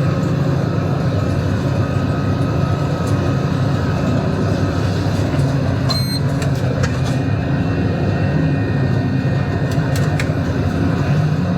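Tractor engine running steadily under load while baling, with a short electronic beep about six seconds in.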